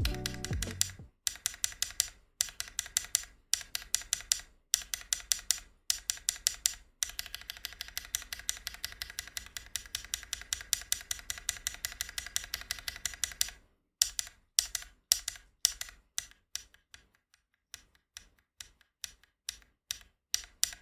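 Mechanical keyboard with BSUN Black Pink linear switches (nylon top and bottom housing, POM stem) being typed on, fairly loud. Fast, continuous typing runs for about the first thirteen seconds, then slower, spaced single keystrokes.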